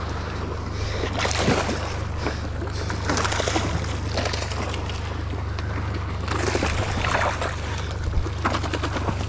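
A boat sitting offshore: a steady low engine hum under rushing water and wind noise, which swells about a second in, again around three seconds and again around six and a half seconds.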